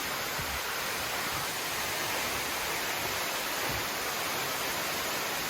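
Waterfall pouring close by: a steady, unbroken rush of falling water, its flow heavy after recent rain.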